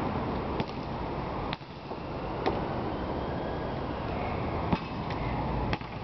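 About six sharp thuds of a basketball bouncing on an asphalt court and slapping into hands, over a steady low background rumble.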